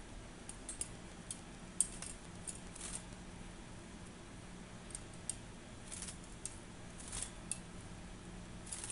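A parrotlet bathing in a plastic water dish: scattered small splashes and light clicks, irregular and a few a second at most. A steady low hum runs underneath.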